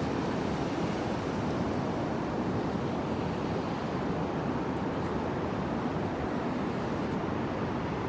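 Surf washing on a beach, a steady rush of noise with no distinct breaks.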